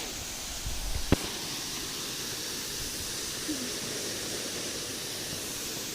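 Waterfall's steady rushing water, an even hiss. About a second in, a short low rumble ends in a sharp click.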